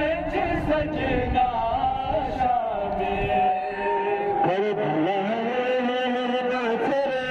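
A noha, a Shia mourning lament, chanted in long, drawn-out lines. Irregular low thuds sound under it for the first few seconds.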